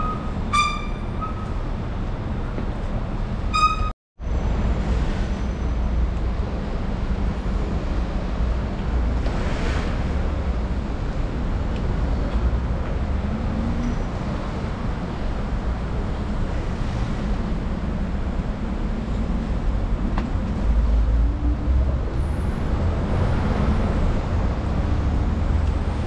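Road traffic noise with a steady low rumble, and two short high-pitched tones near the start. The sound cuts out for a moment about four seconds in.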